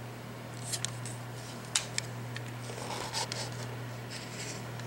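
Small sharp plastic clicks and scrapes as a computer mouse's plastic shell and circuit board are handled and pried at, a few at a time, over a steady low hum.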